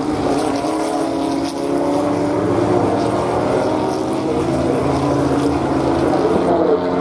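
Several 1960s sports-racing car engines, a Ford GT40 among them, running together at speed as a pack of cars passes through a bend, their notes overlapping and shifting slightly in pitch.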